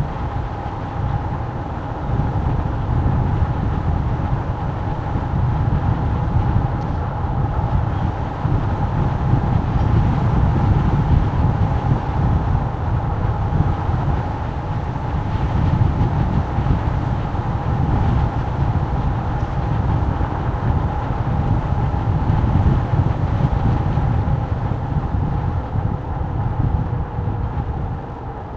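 Steady low rumble of a moving vehicle, with a faint steady whine above it.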